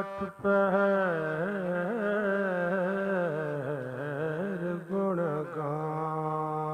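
Shabad kirtan singing: a man's voice sings a long wordless melodic phrase, bending and ornamenting the pitch, with a brief break near the start, then settles on one held note near the end.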